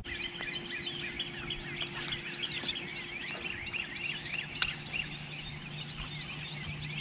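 Dawn chorus: many birds chirping and calling at once in a dense, continuous mass, with a steady low hum underneath and a single sharp click a little past the middle.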